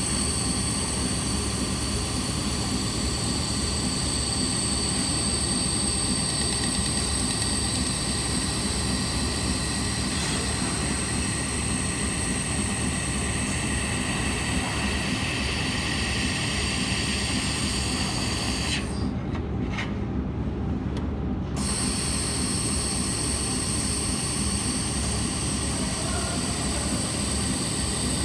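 Handheld laser welding machine running: a steady whirr of cooling fans with several high-pitched whines over it. The whines cut out for about two seconds some two-thirds of the way in, then come back.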